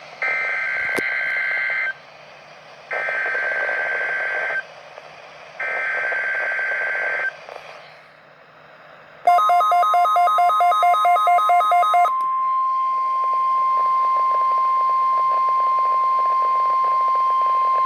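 NOAA Weather Radio alert signal heard over a radio: three short bursts of shrill two-tone data noise (the SAME header), each under two seconds. After a pause, a steady high-pitched 1050 Hz warning alarm tone follows, with a rapid warbling beep over it for its first three seconds or so.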